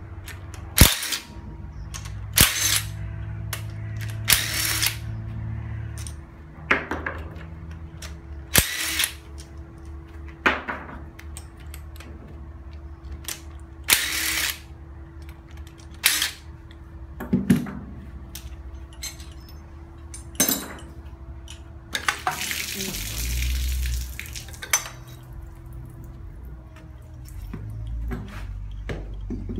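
Power impact wrench with a long socket extension spinning bolts off a new Hyundai 1.5 16-valve engine block, in about ten short bursts with a longer run about 22 seconds in.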